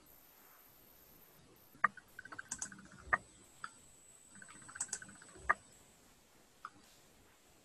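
Two short bursts of clicking and tapping on a computer keyboard, each opening and closing with a sharper click, then one more click near the end.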